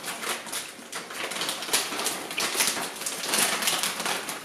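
Irregular crackling and crinkling from food being cooked and handled in a kitchen: a stream of short scratchy noises.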